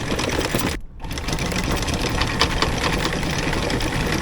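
Sailboat's engine running steadily, with a brief dip in loudness about a second in.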